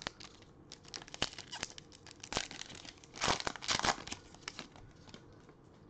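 Foil wrapper of a Donruss Optic football trading-card pack crinkling and tearing as it is ripped open by hand: a run of crackles, loudest about three to four seconds in.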